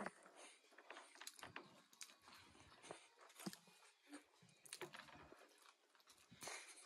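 Faint chewing and mouth sounds of people eating steamed momo dumplings, with scattered soft clicks and smacks.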